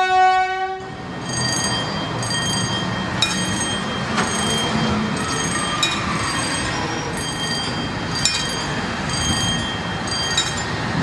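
A horn sounds briefly at the start. Then a railway track tamping machine rolls past on the rails: a steady rumble with high ringing tones that come and go, and sharp clicks every second or so.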